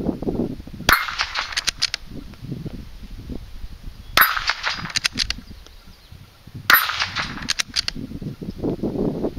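Three .22LR rifle shots from a Marlin Model 80 bolt-action, about a second in, about four seconds in and near seven seconds in. Each sharp crack is followed within half a second by a few faint ticks of the bullet striking the steel plate targets.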